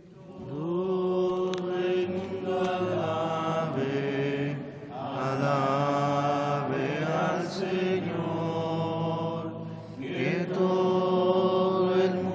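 Congregation singing a Taizé chant in harmony, long held notes in short phrases, with brief breaks between phrases about five and ten seconds in.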